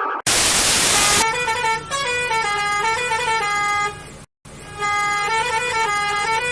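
A one-second burst of hiss, then a musical vehicle horn playing a short stepping tune twice, with a brief break between the two plays.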